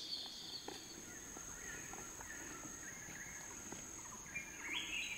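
Forest ambience: a steady high insect drone, with a second insect buzz that stops about a second in. Birds call in short chattering bursts, louder near the end.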